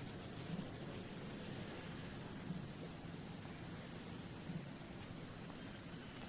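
Night insects, crickets, trilling: a steady high-pitched drone with a fast, even pulsing on top, over a faint low hum.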